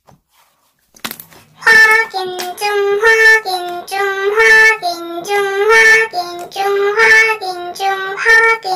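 A high voice singing a short melody of steady, evenly paced notes that step up and down, starting a little under two seconds in. A few faint clicks come before it.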